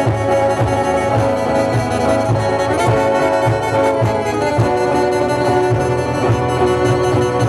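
Live band music: sustained chords held over a steady low bass beat.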